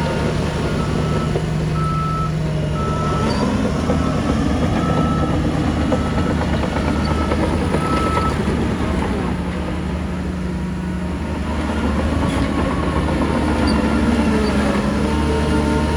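Heavy diesel engines of earthmoving machines running steadily, their pitch shifting now and then as they work. A reversing alarm beeps repeatedly through the first half.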